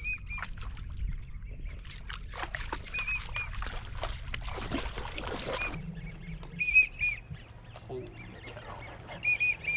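Flock of drake American wigeon whistling: short squeaky whistles in twos and threes, repeated throughout and loudest about seven seconds in and again near the end. A spell of dense rustling noise runs through the first half.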